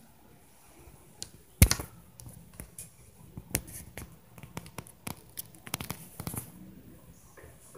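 Upstairs neighbours' banging and stomping heard through the ceiling: an irregular string of sharp knocks and thumps lasting about five seconds, the loudest a little way in.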